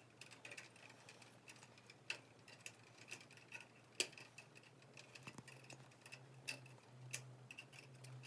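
Faint, irregular metallic clicks and ticks of linesman pliers twisting bare copper ground wires together.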